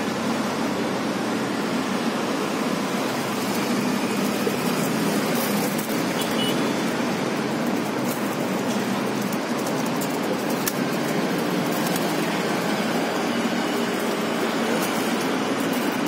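Steady city traffic noise, an even unbroken hum with no single vehicle standing out. A few faint scattered clicks come through in the middle.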